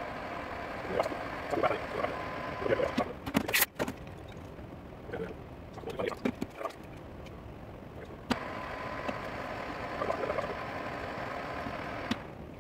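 Metal lathe running with a steady whine and scraping as the tool cuts. It stops about three and a half seconds in, leaving clicks and knocks of the tool post and slides being handled. A little past eight seconds it starts again and runs until just before the end.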